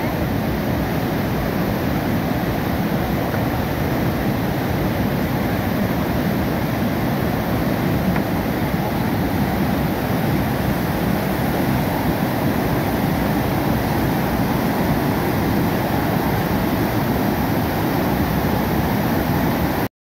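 Large waterfall in flood: a steady, loud rush of heavy muddy river water pouring over a wide rock ledge.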